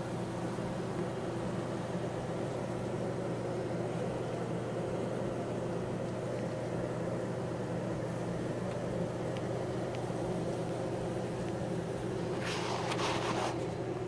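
Steady hum of a honeybee colony crowded on comb. A brief rustle comes near the end.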